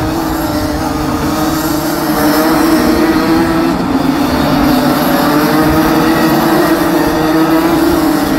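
Pack of Rotax 125cc two-stroke racing kart engines buzzing past on track, several engine notes overlapping and wavering, getting a little louder about two seconds in.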